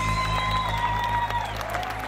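Closing background music holding a final chord and fading out, with applause and cheering mixed in.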